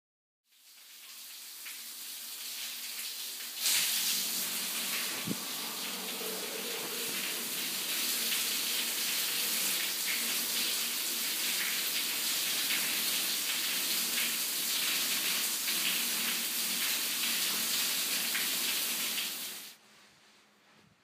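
Shower spray running steadily, a continuous water hiss. It fades in, grows louder about three and a half seconds in, and cuts off abruptly near the end.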